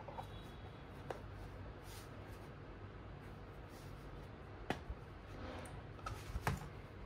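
A few sharp clicks and light knocks, once about a second in and a cluster near the end, over a steady low hiss: a harmonica and its box or case being handled during unboxing.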